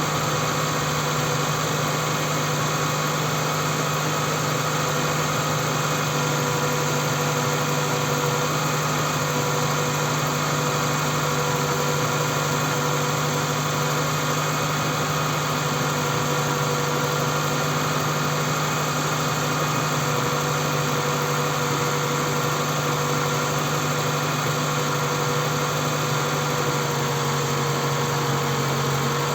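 Toyota Camry's 2.4-litre 2AZ-FE four-cylinder engine idling steadily from a cold morning start. It is being checked for a knock or rattle that the owner says it makes when started cold.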